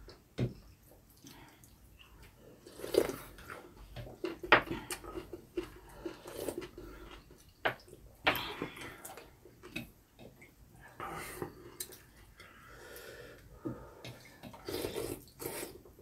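Two people eating beef-and-mushroom hot pot: wet slurps of broth and glass noodles, with a few sharp clicks of utensils against the bowls.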